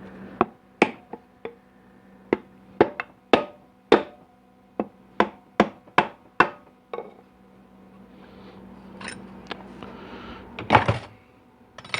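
About fifteen sharp hammer taps, roughly two a second, on the 4L80E transmission pump as it is seated in the case. After a pause there are a few lighter knocks and then one heavier thump near the end.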